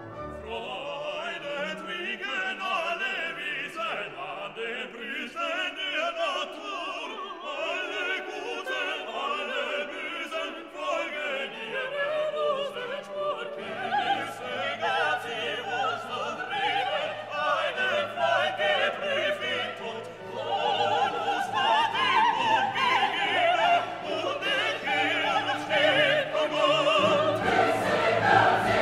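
Classical orchestral music with singing voices. A low bass line comes in about halfway, and the music grows louder for the last third.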